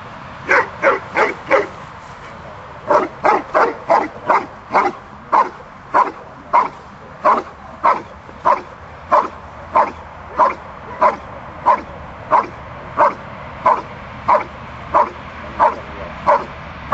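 Giant schnauzer barking at a trial helper in a hiding blind, the hold-and-bark of IPO protection work. A quick burst of four barks is followed, after a short gap, by a steady, regular string of barks at about one and a half a second.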